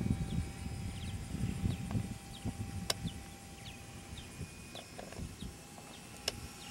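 Electric motor of a radio-controlled floatplane running as a thin, steady whine overhead, under gusts of wind rumbling on the microphone. Birds give repeated short, falling chirps throughout.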